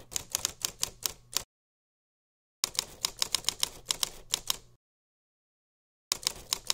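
Typewriter keys clacking in three quick runs of strikes, several a second, with dead silence between the runs: an edited typing sound effect.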